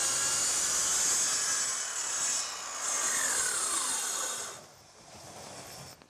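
Hitachi circular saw running through a sheet of MDF along a guide track. After about three seconds its pitch falls as the motor winds down, and the sound drops away about four and a half seconds in.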